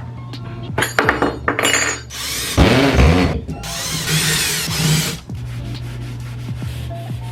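Several short bursts of scraping and rubbing in the first five seconds or so, over a steady low hum that carries on alone afterward.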